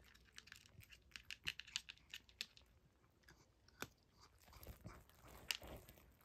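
A cat crunching dry kibble: a quick run of crisp crunches over the first couple of seconds, a pause, then more crunches from about four and a half seconds in.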